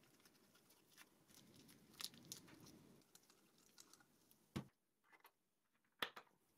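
Faint handling sounds: a small collet box being opened and a collet fitted into the collet holder on a spindle motor shaft by gloved hands. A few soft clicks and a light rustle, otherwise near silence.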